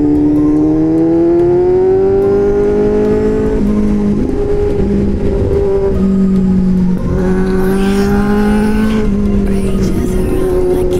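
Motorcycle engine breathing through an aftermarket SC-Project-style exhaust, heard from the rider's seat. It rises steadily in pitch for the first few seconds, changes about three and a half seconds in, then runs at a fairly steady pitch.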